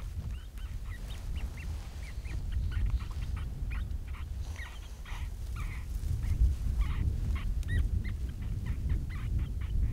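A busy chatter of short, high animal calls, many each second, rising and falling in pitch, over a steady low wind rumble.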